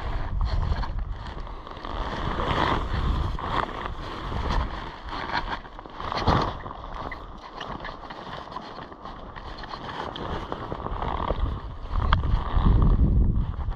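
Wind buffeting the microphone outdoors, an uneven rumbling noise that swells in gusts, strongest near the end, with a few faint ticks.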